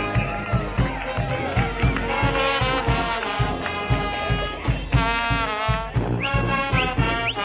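Street brass band playing: trombones and trumpets over a steady drum beat, with several quick upward slides from the horns near the end.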